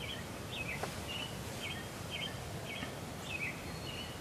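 A songbird sings a run of short whistled chirps, about two a second, some of them sliding down in pitch, over a steady low outdoor background noise.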